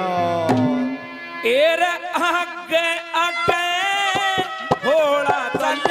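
A man singing a Haryanvi ragni live through a microphone, the sung melody starting about a second and a half in over sustained instrumental notes, with drum strikes scattered through.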